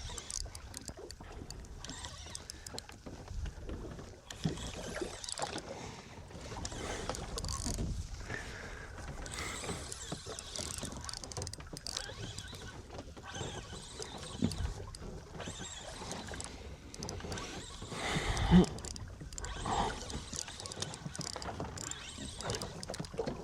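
Water slapping against the hull of a small fishing boat, with scattered knocks and one loud knock about three quarters of the way through.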